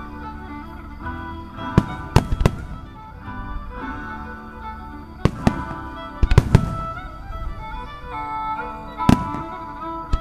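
Starmine fireworks display: aerial shells bursting with sharp bangs in several quick clusters, the loudest group about six and a half seconds in, over music.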